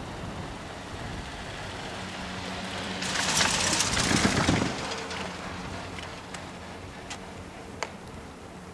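Four-seat chairlift running, with a steady rumble from the moving rope. About three seconds in, a loud clattering rumble lasts about a second and a half as the chair's rope grip passes over the tower's sheave rollers. A few sharp clicks follow near the end.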